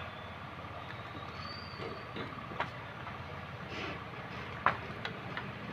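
Faint, steady background hum with a couple of soft clicks, one mid-way and one near the end. The pressed-in shock absorber makes no clearly heard sound as its rod creeps back.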